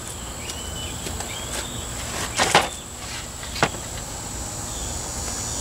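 Wooden board knocking onto sawhorses as it is laid across them: two quick knocks about two and a half seconds in, then a third a second later. A steady high insect drone runs underneath.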